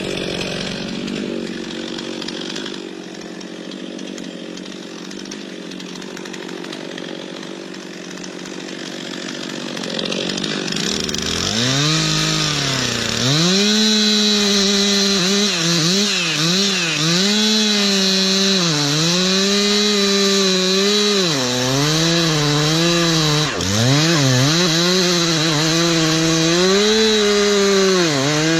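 Two-stroke chainsaw cutting into a tree. It runs more quietly for about the first ten seconds, then opens up to full throttle, and its engine note dips and recovers again and again as the chain bogs down in the wood.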